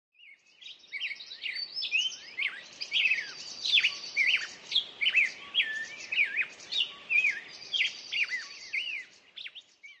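Songbirds singing, several at once: overlapping clear whistled phrases that sweep down and up, quick chirps and fast buzzy trills. The birdsong fades in at the start and fades out near the end.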